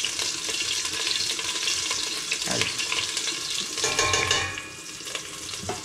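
Whole spices (mustard seeds, cumin seeds, curry leaves, fenugreek seeds and chillies) sizzling in very hot oil while being stirred in the pan, with scattered pops; this is the tempering stage of an Indian curry. The sizzle eases about five seconds in.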